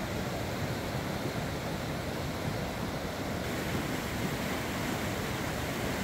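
Mountain stream rushing over rocks in white-water rapids: a steady, unbroken rushing of water.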